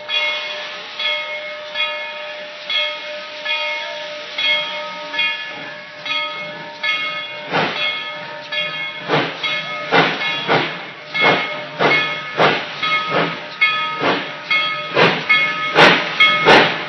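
Narrow-gauge steam locomotive No. 12 pulling away, its bell ringing in a steady rhythm. About halfway in, the exhaust chuffs grow louder and come quicker as the engine picks up speed.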